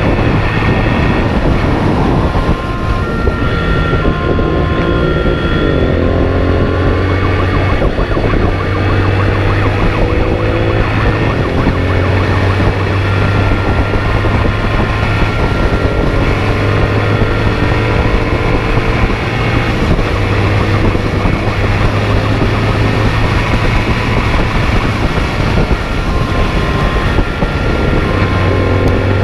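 Motorcycle engine at speed, revving up through the gears again and again, each rising pitch dropping back at a shift, over a loud rush of wind and road noise. Short steady high tones come and go over it several times.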